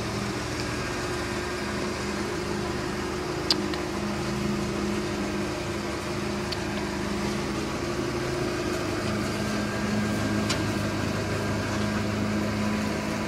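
Steady machine hum, with a sharp click about three and a half seconds in and a fainter one near ten and a half seconds.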